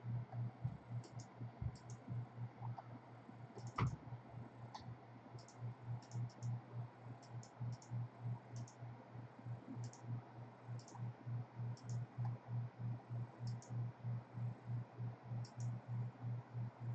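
Scattered computer mouse clicks, one sharper click about four seconds in, over a low hum that pulses about three times a second.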